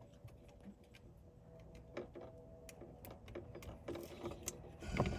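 Light, irregular clicks and ticks of a plastic CAN-bus STAR wiring connector and its plugs being handled. The clicks come closer together and louder toward the end, with a brief clatter near the close.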